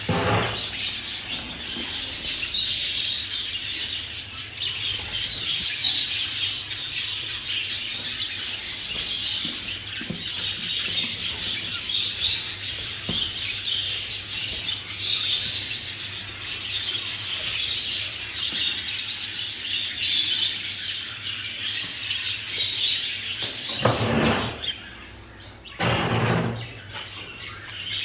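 Budgerigars chattering and chirping together, a continuous busy warble that dims for a moment near the end, over a faint steady low hum.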